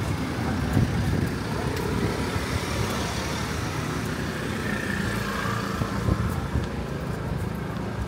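Road traffic going past close by: cars and a motor scooter driving along the street, a steady mix of engine and tyre noise, with the scooter passing right alongside about halfway through.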